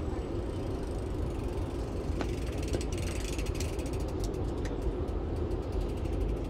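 Bicycle freewheel ticking as a bike coasts past: a rapid, even clicking from about three seconds in until near the end, over a steady low background rumble.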